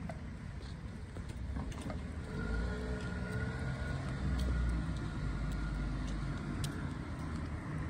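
A car running along the street nearby, its engine and tyre noise growing louder about two seconds in and easing off again after about five seconds, over a low steady rumble.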